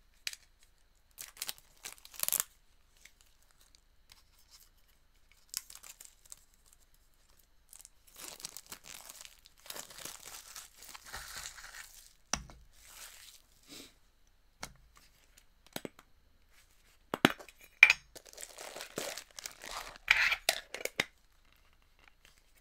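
Plastic packaging of a Funko Soda can tearing and crinkling as the can is unwrapped and opened. It comes in irregular bursts with sharp clicks, the loudest near the end.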